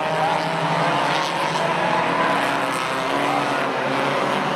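A field of four-cylinder compact stock cars racing, several engines running at once and heard together as a steady mix of overlapping engine notes.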